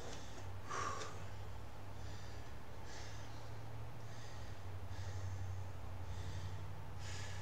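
A man breathing hard after exercise, short audible breaths about once a second, winded from a set of push-ups and deep knee bends. A steady low hum runs underneath.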